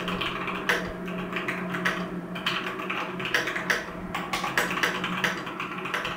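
Typing on a Keychron x Candysign mechanical keyboard with Gateron Brown switches: a fast, irregular run of keystrokes, thocky and without a high-pitched click.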